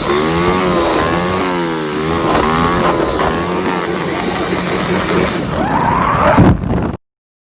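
Motorcycle engine revving up and down several times in loud, repeated swings of pitch, with one last quick rise before the sound cuts off abruptly about seven seconds in.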